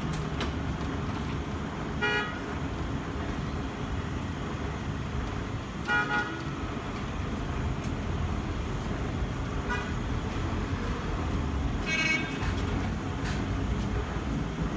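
Street traffic rumbling steadily, with several short car-horn toots: about two seconds in, a double toot around six seconds, a faint one near ten seconds and another around twelve seconds.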